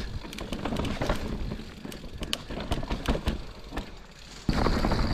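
Mountain bike rolling down a dirt trail: tyres rumbling over the ground, with many sharp clicks and rattles from the chain and frame. About four and a half seconds in, a louder, steady rushing noise sets in.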